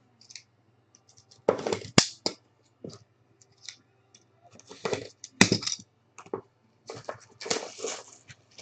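Trading-card box and packaging being opened and handled: a string of clicks, crinkles and rustles, with the longest bursts about 1.5 s in, about 5 s in and near the end.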